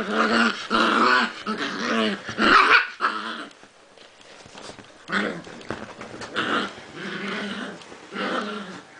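Prague Ratters play-growling in repeated bursts, with a quieter lull a few seconds in. It sounds much worse than it is: rough play, not a real fight.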